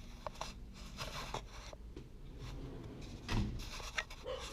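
Faint rubbing and scraping with scattered light clicks, and a somewhat louder knock about three seconds in: small handling noises.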